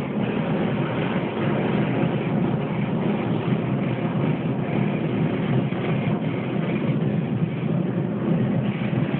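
Handheld blowtorch flame hissing steadily while its jet sets a paper photo print alight and the paper burns.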